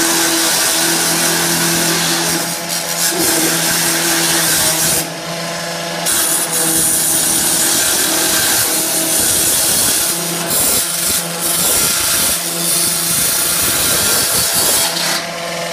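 Stihl gas-powered cut-off saw running at high speed, its two-stroke engine holding a steady tone while the blade cuts through corrugated steel roof decking with a loud hiss. The cut eases off for about a second around five seconds in, and again briefly near ten seconds and near the end.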